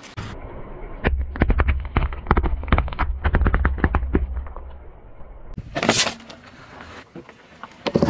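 Car tyre rolling over and crushing objects on asphalt: a dense run of crackling pops and crunches over a low rumble, then a single short crunching burst a little before six seconds and another near the end.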